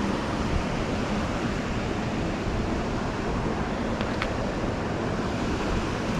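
Steady rushing of creek water flowing over a spillway, with two faint clicks about four seconds in.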